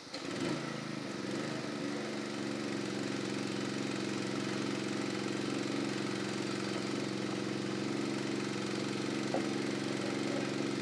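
Engine of the irrigation water pump starting up and settling within a couple of seconds into a steady, even run below full throttle, a small click about nine seconds in.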